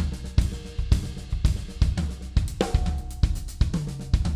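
Acoustic drum kit played in a fill: quick stick strokes moving between snare and tuned toms, with bass drum hits and cymbals and hi-hat. The playing is built from right-left-left-kick and right-left-kick sticking patterns.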